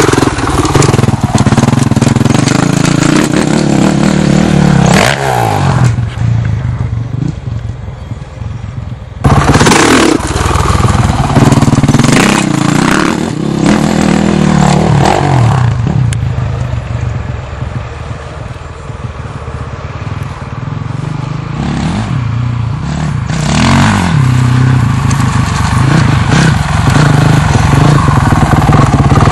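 Dirt bike engine revving and easing off as it is ridden over a dirt track, the pitch rising and falling with the throttle. It fades as the bike rides away through the middle and grows loud again near the end, with a sudden jump in loudness about nine seconds in.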